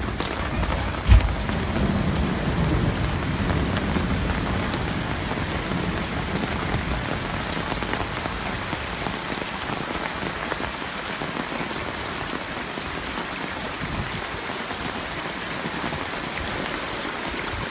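Heavy rain pouring steadily. About a second in there is a single loud thump, followed by a low rumble for a few seconds.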